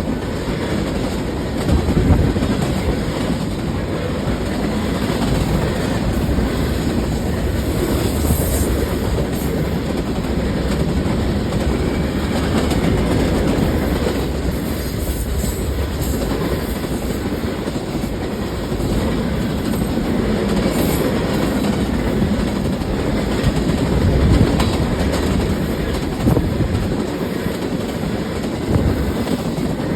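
Train rolling past steadily, its wheels clacking over the rail joints.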